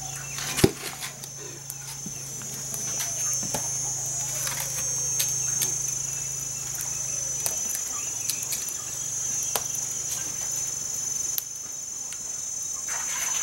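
Insects chirring in a steady high-pitched drone, over a low steady hum. Scattered clicks and knocks from the aluminium pot and the firewood being handled, the sharpest a knock just under a second in.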